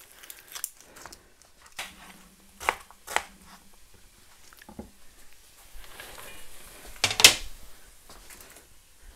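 Onion being cut with a kitchen knife on a plastic chopping board: a few separate sharp knocks of the blade on the board, with faint crackling of onion and onion skin. The loudest knock comes about seven seconds in.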